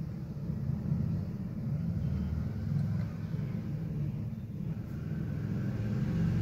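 Peeled boiled eggs sizzling faintly in hot oil in a pan over a gas burner, over a steady low rumble that is the loudest sound.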